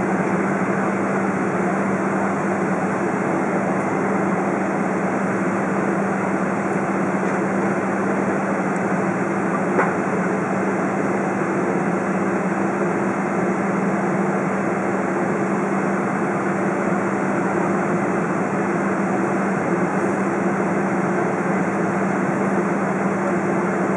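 Steady hum of a Boeing 777-200's GE90 jet engines at low taxi power, heard inside the passenger cabin, with a single click about ten seconds in.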